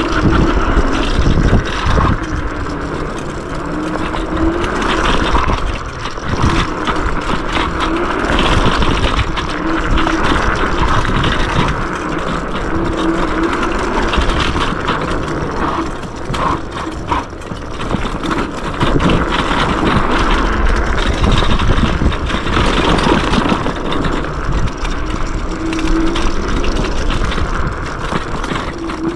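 Yume X11 electric scooter ridden fast on a dirt woodland trail: a steady rush of wind and tyre noise, with a short motor hum that comes and goes several times.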